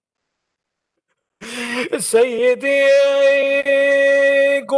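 Dead silence for about a second and a half, then a sharp breath and a man's voice opening a chanted mourning elegy with "Sayyidi", drawn out into one long, steady sung note.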